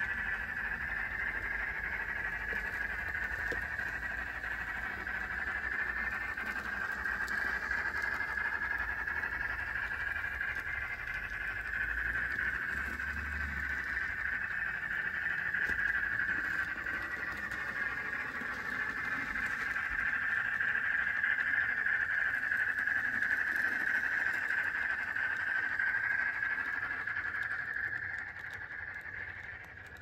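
Sound-fitted N gauge model of an Ivatt 2MT steam tank engine, its small onboard speaker playing steam running sounds while the train moves. The sound is steady and thin, with little bass, and dips near the end as the train draws away.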